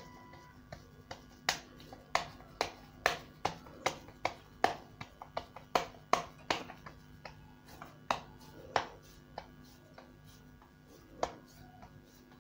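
Hands patting soft, moist shami kabab mixture into patties between the palms: a run of sharp slaps, about two or three a second, thinning to a few scattered pats in the last few seconds.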